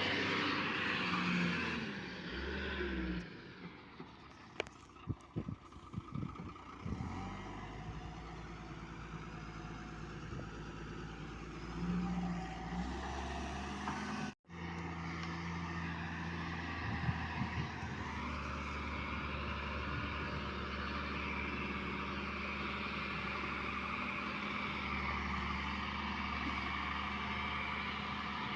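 Hyundai 210-7 excavator's diesel engine running steadily, with a run of sharp knocks and clanks a few seconds in; the sound cuts out for an instant about halfway, then the engine runs on steadily.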